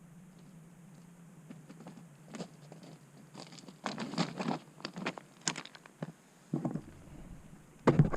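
Irregular crunching and rustling clicks over a faint steady low hum, growing busier after a few seconds and loudest near the end, where the sound cuts off.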